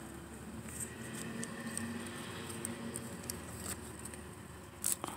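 Swiss chard stalks and dry leaf mulch rustling and crackling under a hand as the stalks are cut at the base, with scattered small crisp ticks and one sharper click near the end. A faint steady low hum lies underneath.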